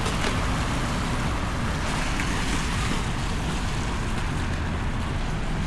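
Steady city street noise: a constant low traffic rumble under an even hiss.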